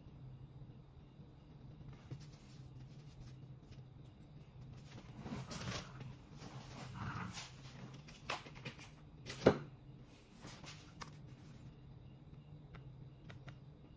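Soft rubbing and handling noises of a hand on a laptop's plastic palm rest and touchpad, with a few light ticks and one sharp click about nine and a half seconds in.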